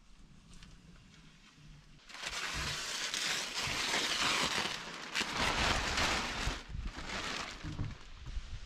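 Clear grid-reinforced plastic sheeting rustling and crinkling as it is handled and pulled about, starting about two seconds in and lasting some five seconds, then a sharp click at the very end.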